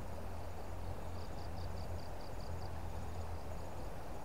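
Steady riverside background hiss with a low rumble, and a quick, even series of short high chirps, about five a second, starting about a second in and fading out after a couple of seconds, typical of a chirping insect.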